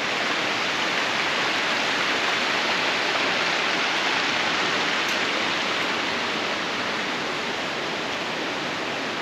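Steady, even rush of water falling at a waterfall.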